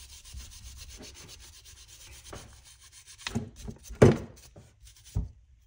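A small brass wire brush scrubbing rust off an old steel wrench in rapid back-and-forth strokes. The scrubbing stops after about three seconds and gives way to a few knocks of tools being handled, the loudest about four seconds in.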